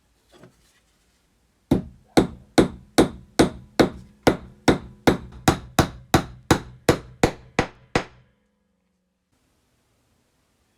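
A hammer striking about sixteen times in a steady, even rhythm of roughly two and a half blows a second, each blow a sharp knock with a short ring, stopping about two seconds before the end.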